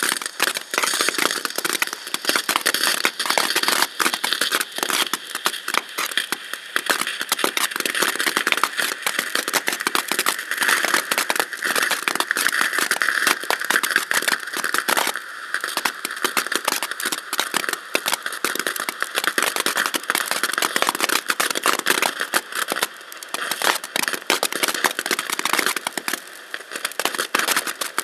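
Ground fountain firework spraying sparks: a continuous hiss thick with rapid crackling, dying away near the end as the fountain burns out.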